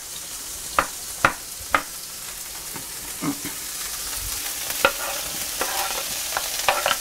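Sliced mushrooms sizzling in olive oil in a hot skillet, with a utensil clicking and scraping against the pan about ten times as they are stirred. The sizzle grows a little louder toward the end.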